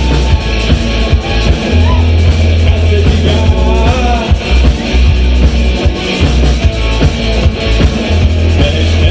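Rock band music: a full mix with a heavy bass line, a steady drum beat and guitar, with a melodic line wavering over it.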